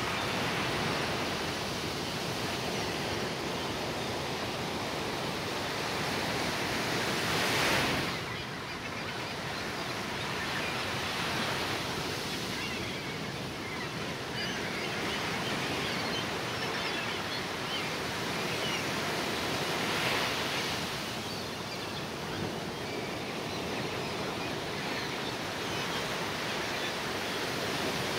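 Ocean surf washing steadily, with a wave breaking louder about eight seconds in and another about twenty seconds in.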